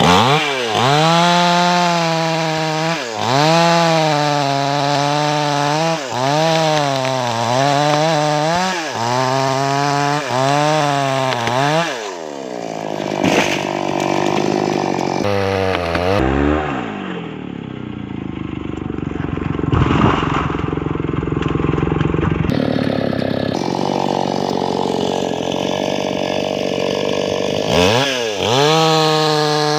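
Maestro Plus CS6500L two-stroke petrol chainsaw cutting through teak trunks, the engine revving up and falling back over and over. About twelve seconds in it drops to a lower, rougher running for a stretch, then revs up and down again near the end.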